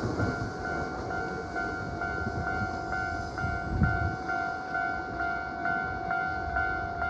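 Railway level-crossing warning bell ringing, an even repeating ding about twice a second, over the low rumble of a train that has just passed.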